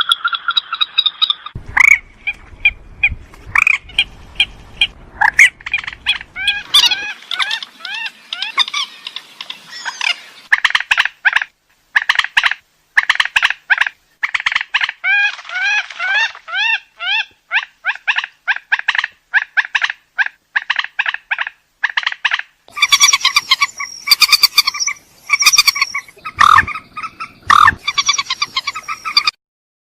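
Repeated calls of a mandar (rail), a fast series of short, harsh notes several a second, with brief pauses, breaking off suddenly near the end.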